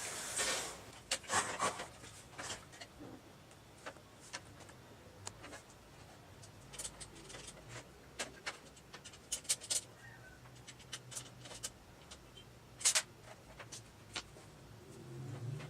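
Scattered small clicks and scrapes of a screwdriver turning screws to mount an SSD in a desktop PC case, irregular and sparse, with a few sharper clicks now and then.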